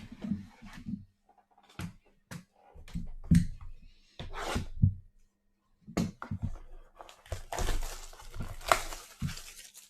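A sealed box of trading cards being handled and opened: irregular knocks and thuds of cardboard, with its wrapping tearing and crinkling in two longer stretches, the loudest near the end.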